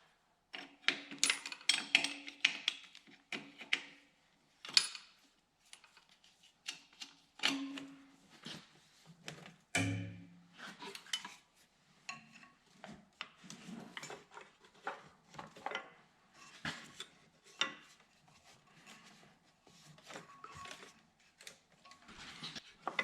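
Hand tools and metal parts clinking and tapping in irregular short clicks as the throttle cable is disconnected from a tractor engine.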